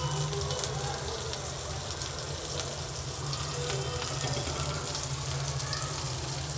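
Shami kababs shallow-frying in hot oil on a tawa griddle: steady sizzling with scattered crackles and spits, over a low steady hum.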